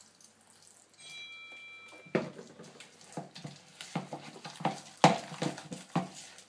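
A spoon stirring thick pancake batter in a bowl: irregular scrapes and knocks against the bowl, starting about two seconds in.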